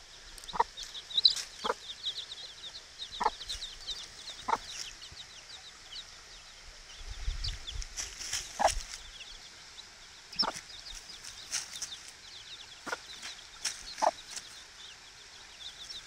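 Mother hen giving short, soft clucks every second or two while her week-old chicks keep up a faint, high peeping.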